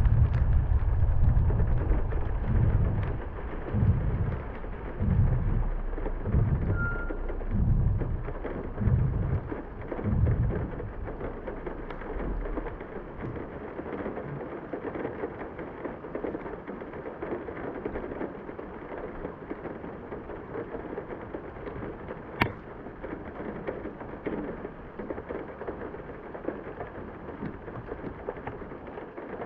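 Heavy rain falling steadily as an even hiss. For the first twelve seconds or so a low rumble with deep thumps about once a second runs under it, then dies away, leaving the rain alone. One sharp click comes about 22 seconds in.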